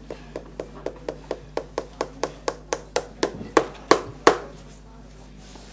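Hand tapping with a hammer or similar tool on a workpiece at a craftsman's bench, in a steady run of sharp knocks about four a second. The knocks grow louder, then stop about four seconds in.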